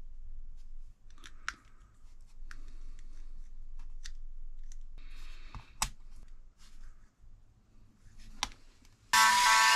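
Scattered sharp clicks and light scrapes of plastic parts being handled. Near the end, a small high-speed power tool starts suddenly and runs with a loud, steady whine.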